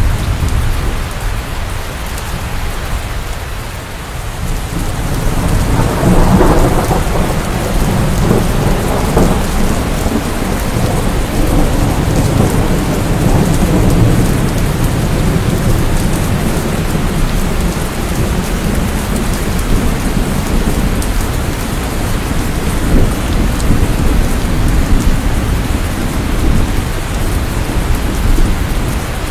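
Steady rain with rolling thunder. A low rumble fades over the first few seconds, then a new peal of thunder swells about six seconds in and rumbles on under the rain.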